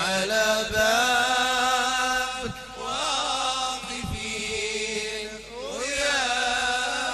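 A male voice chanting a Sufi devotional invocation in Arabic, holding long wavering melismatic notes and sliding up into each new phrase, with a low thump every couple of seconds.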